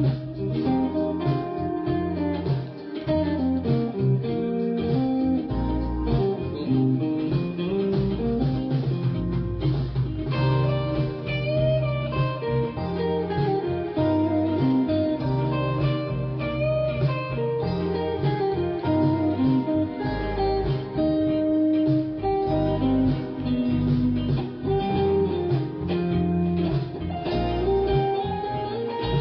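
Background music: a blues-style guitar piece with a bass line underneath.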